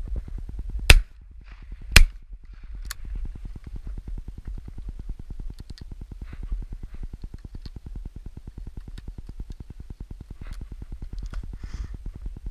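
Two shots from a 20-bore Beretta Silver Pigeon over-and-under shotgun, fired about a second apart at a flying gamebird, followed by a fainter click. Wind rumbles on the microphone throughout.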